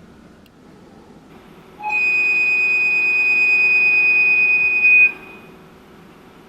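Dubbed locomotive whistle sound effect: one steady, high-pitched blast about three seconds long, starting a couple of seconds in and cutting off sharply. A faint steady hum lies underneath.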